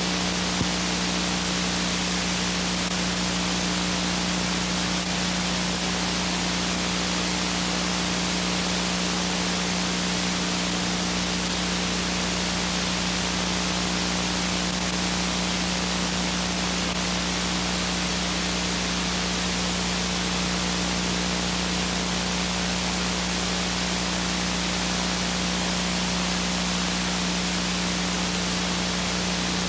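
Steady hiss with a constant low hum and fainter steady tones above it, the playback noise of a blank stretch of videotape. A faint click about half a second in.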